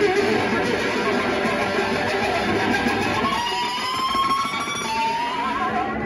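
Telecaster-style electric guitar playing a blues solo. About halfway through it moves to long held notes that bend slightly upward in pitch.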